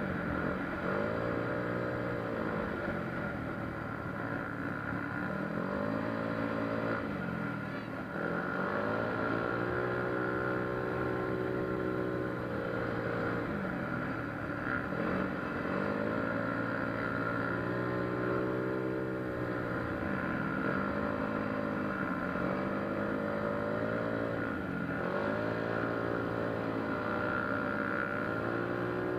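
Yamaha Mio Soul scooter's single-cylinder four-stroke engine, bored out to about 160cc with a 59 mm bore kit, big 24/28 valves and a 28 mm carburettor, revving up and dropping back again and again.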